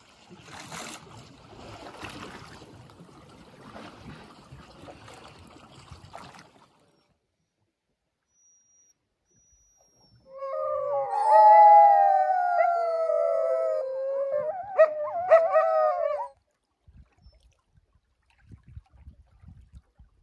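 Sled dogs (Canadian Inuit Dogs) howling together for about six seconds, several voices gliding up and down over one another. It starts about ten seconds in and stops abruptly. Before it there is a faint, even rushing noise for about six seconds, then a short quiet gap.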